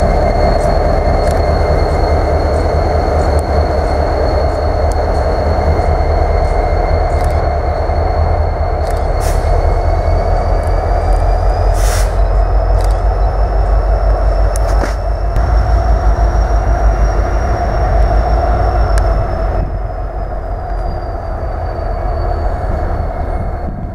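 Slow freight train of empty tank cars rolling by, with a steady low rumble from the Norfolk Southern EMD SD70ACe diesel locomotive shoving at the rear. A continuous high wheel squeal runs through it, rising a little in pitch midway and falling back, with scattered sharp clicks and clanks from the wheels on the rail.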